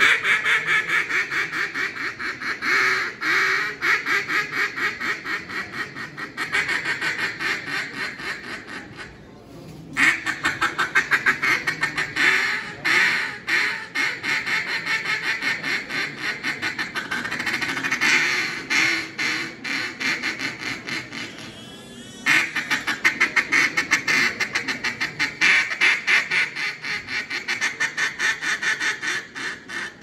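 Hand-blown mallard duck call, sounding runs of quick quacks. Each run opens loud and grows softer note by note, the loud-to-soft pattern of a hail call meant to reach and draw in distant ducks. There are short breaks about nine seconds in and again about twenty-two seconds in.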